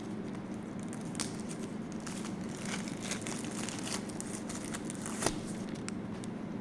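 Packaging being handled and unpacked: crinkling and rustling with scattered small clicks, and one sharper knock about five seconds in, over a steady low hum.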